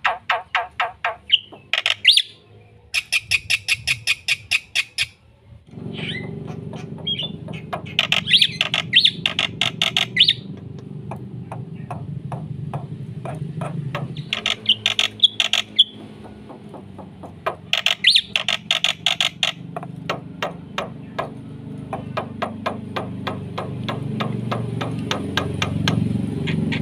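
Jalak putih (black-winged myna) singing hard, in bursts of fast, harsh repeated notes, each burst a second or two long. From about six seconds in, a low steady rumble runs underneath.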